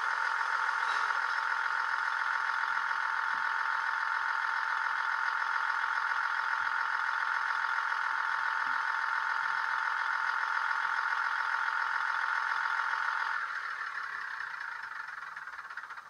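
Class 158 diesel multiple unit engine sound played by a DCC sound decoder through the model's pair of small 22x13 speakers, running steadily with the stationary train's engine idling. About thirteen seconds in it drops away and fades out.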